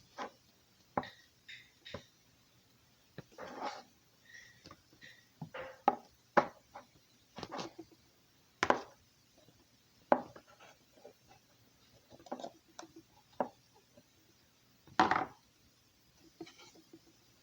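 Slime being squished and pressed by hand, giving irregular crunches, clicks and pops.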